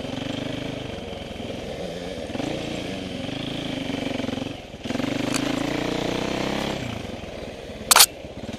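KTM 525 EXC four-stroke single-cylinder enduro engine running under the rider on a trail, the revs rising and falling with the throttle and briefly dropping off a little before halfway. A single sharp knock near the end.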